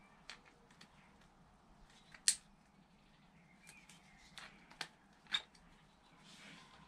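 Pliers clicking against a hose clamp as a small hose is fitted: about six short, sharp clicks, the loudest a little over two seconds in and three more close together near the end.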